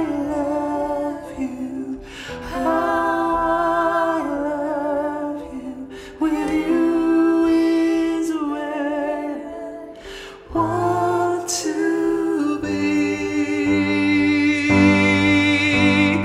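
A man and a woman singing a wordless passage together in harmony: long held notes in phrases of a few seconds, with short breaks between them.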